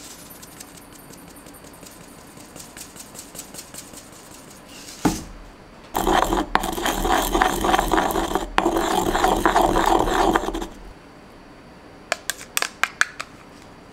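Sesame seeds ground in a suribachi, a grooved ceramic mortar, with a wooden pestle: a loud gritty scraping that starts about six seconds in and lasts about five seconds. Before it come faint ticking and a single knock, and near the end a few sharp clicks.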